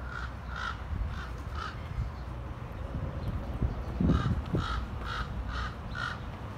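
Crows cawing: a run of four harsh caws, then after a pause of about two seconds a second run of five caws at an even pace. A low thump sounds near the middle.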